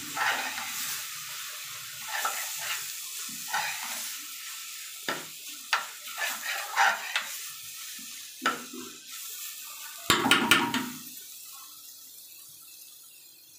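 Metal spoon stirring and scraping chicken and vegetable momo filling in a metal frying pan, over a steady sizzle of frying. The scrapes come irregularly, with a louder clatter of spoon on pan about ten seconds in, and the sizzle fades toward the end.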